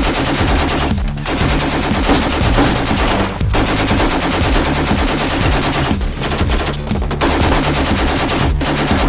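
Sustained rapid automatic rifle fire, shots coming in a near-continuous stream with a few short breaks.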